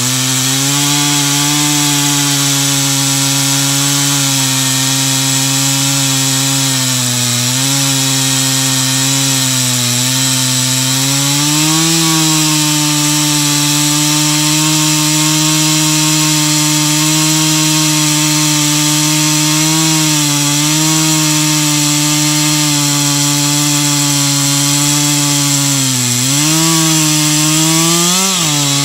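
Stihl MS 362 C-M two-stroke chainsaw with a 20-inch bar and full-comp chisel chain cutting through dry red oak, held under load. Engine pitch sags and recovers as the cut goes, and rises again near the end.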